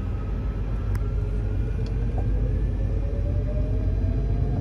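Steady low rumble of a Boeing 747 rolling along the runway, heard from the flight deck, with an engine whine rising slowly in pitch as thrust is added to accelerate.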